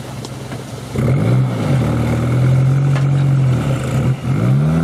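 Off-road competition 4x4's engine revved hard while the vehicle is bogged in deep mud, belching black smoke. The revs rise about a second in and hold high, then drop briefly and climb and fall again near the end.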